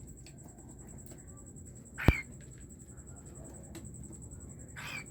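Cockatiel giving two short calls, one about two seconds in with a sharp click, the other near the end.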